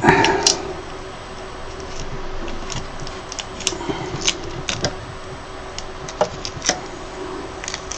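A knock right at the start, then scattered sharp clicks and light scrapes of fingers and a small knife working the resin-seal stickers loose around a resin printer's LCD screen, over a faint steady hum.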